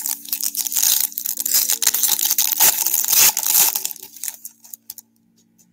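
A Topps baseball card pack's wrapper being torn open and crinkled by hand. It gives dense crackling for about four seconds, then dies away.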